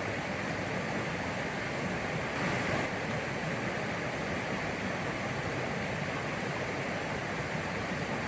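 Steady rush of falling or flowing water, an even wash of noise with no separate events.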